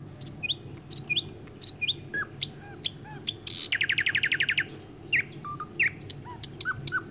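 Small birds chirping: scattered short chirps and whistles, with a fast trill of quickly repeated notes about four seconds in, over a low steady hum.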